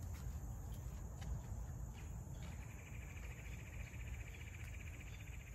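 Footsteps through grass for the first couple of seconds, then an insect starts a steady, fast-pulsing high trill about two and a half seconds in, over a low outdoor rumble.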